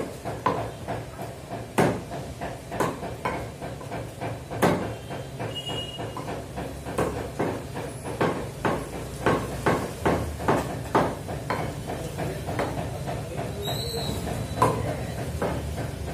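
A meat cleaver chopping raw chicken on a wooden log chopping block: a run of sharp, irregular knocks that come quicker around the middle.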